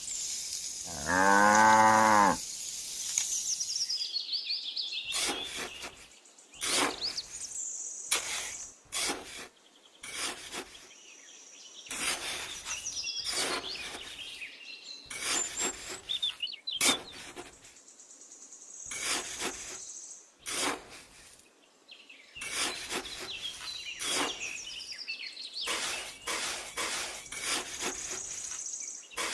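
A cow moos once, a long call about a second in. After it, high chirps and a steady high buzz come and go, with many short clicks and knocks.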